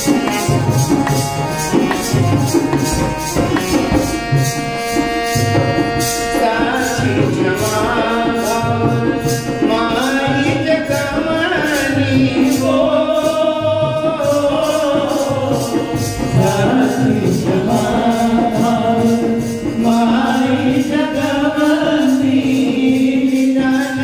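Bhojpuri devotional song to the Mother Goddess: a hand drum keeps a steady beat under an instrumental melody, and a voice starts singing about six seconds in.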